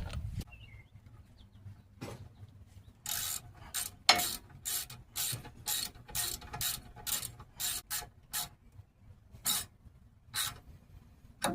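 Hand ratchet wrench clicking in repeated short back-strokes, about two or three a second with brief pauses, as a rear brake bolt is run in and tightened.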